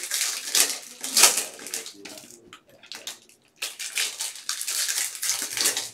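Bowman baseball card pack wrappers crinkling and rustling as the packs are handled, in bursts with a short lull about halfway through.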